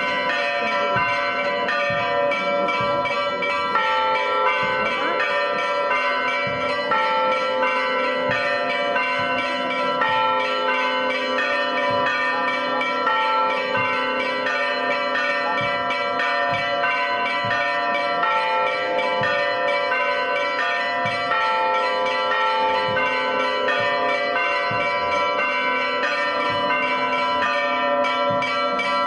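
Church bells ringing a continuous peal, several bells sounding together in a pattern that keeps changing.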